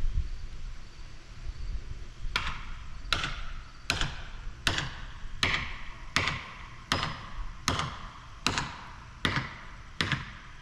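Steady hammer blows, about eleven in all at three every two seconds, starting about two seconds in: a tree cutter driving a felling wedge into the cut of a large oak. A low rumble comes before the first blow.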